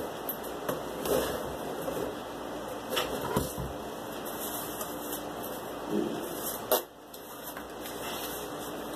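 Cardboard pieces being handled, slid and set down on a wooden workbench: a few soft knocks and scrapes over a steady background hiss, with one sharp click about two-thirds of the way in.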